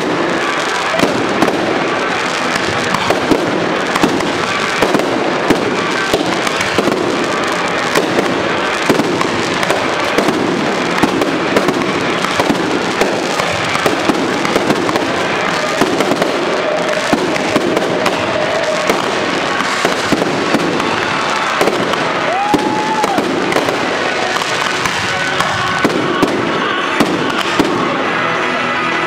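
Aerial fireworks display: shells bursting continuously, with sharp bangs about one to two a second over a constant crackle.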